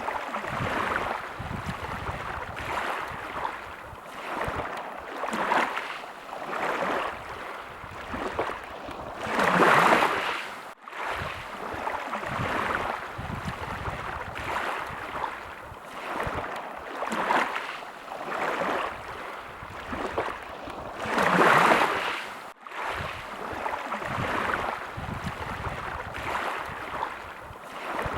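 Small sea waves washing in, swelling every second or two, with two bigger washes about a third of the way in and again about three quarters through. The sound cuts out for an instant twice.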